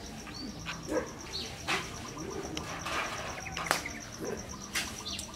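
Spoons clinking against ceramic soup bowls as people eat soup, a few sharp clinks a second or more apart, over background birdsong with a dove cooing and a high, fast, steady chirping.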